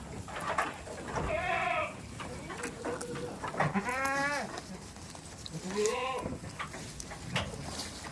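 Goats bleating: three calls about two seconds apart, with a fainter one between the first two.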